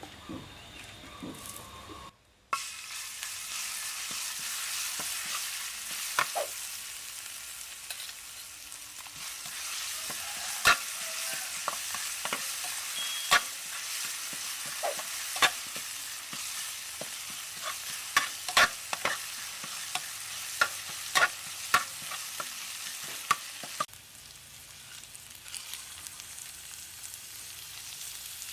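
Squid sizzling as it cooks over heat: a steady hissing sizzle dotted with sharp pops and crackles, dropping quieter near the end.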